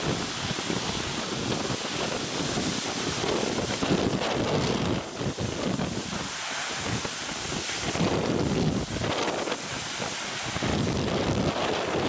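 Heavy storm surf breaking and washing over coastal rocks, with strong wind buffeting the microphone. The rushing noise swells and falls in several surges.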